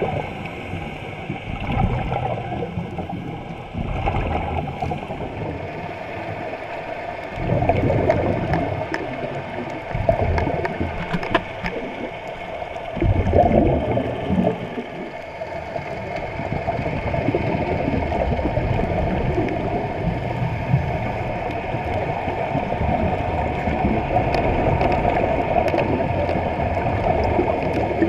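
Muffled underwater sound: a steady rush of water with several louder bursts of bubbling, the biggest about 8 and 13 seconds in, from divers breathing out.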